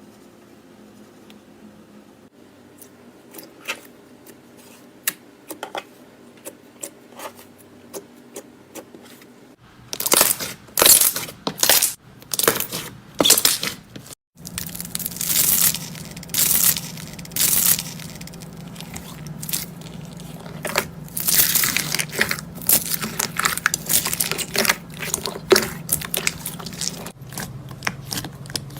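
Slime being worked for ASMR, making sharp clicks and pops. These are sparse at first, then turn into louder, dense crackling in bursts from about ten seconds in.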